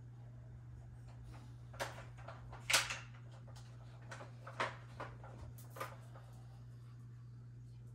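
Hard plastic clicks and knocks of a Johnny Seven toy gun and its parts being handled and fitted together, about five separate sharp clicks, the loudest about three seconds in, over a low steady hum.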